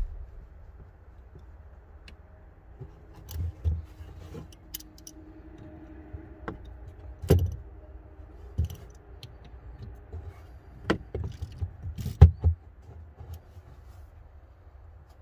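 Small metal clicks, taps and rattles as a wire ring terminal and a hand tool are worked at a car battery's terminal post, with a few louder knocks, the loudest about twelve seconds in.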